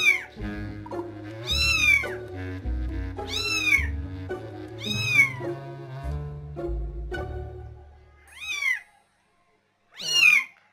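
A young kitten mewing, six high cries that rise and fall in pitch, about one every second and a half with a pause before the last two, over background music that fades out about eight seconds in.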